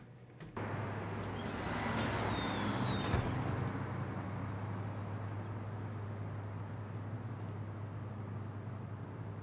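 Street traffic ambience. A vehicle swells past about two to three seconds in, then a steady traffic hum continues.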